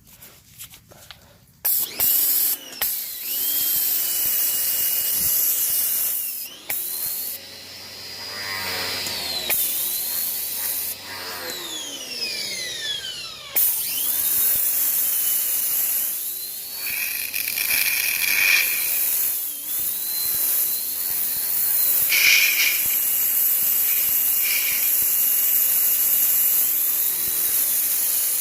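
Portland electric pressure washer starting up about two seconds in: its motor whining and the water jet hissing, the pitch repeatedly rising and falling, with a couple of brief dips as the spray is let off.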